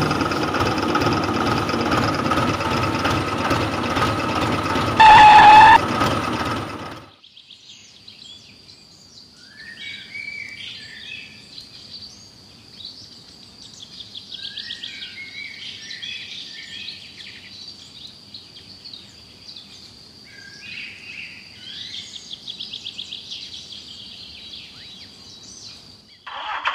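Loud music with engine noise, broken by a short, very loud horn-like tone about five seconds in. It cuts off after about seven seconds, leaving quiet outdoor ambience with birds chirping and a steady high-pitched whine.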